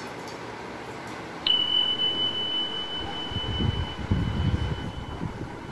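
A single steady high-pitched electronic beep that starts suddenly about a second and a half in, holds one pitch for a few seconds and fades out. Low rumbling and scuffling noise runs underneath in the second half.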